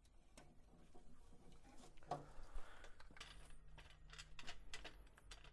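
Quiet handling noise from the plastic printer carriage being moved about: a scatter of light clicks, taps and rustles, busiest in the last couple of seconds. A faint low hum comes in about three seconds in.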